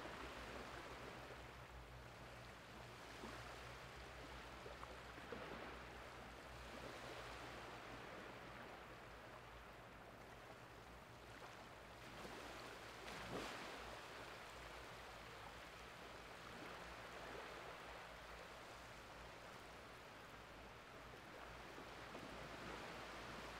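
Small waves washing in over a shallow sandy beach on an incoming tide: a faint, steady wash that swells gently every few seconds.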